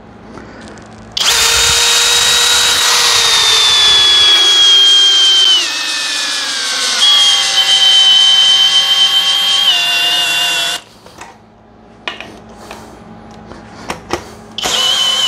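Cordless drill driving a long lag screw into a thick wooden beam through a socket adapter. The motor whines under load for about ten seconds, its pitch sagging lower as it slows, with a step down partway through, then stops. After a few light clicks it runs again briefly near the end.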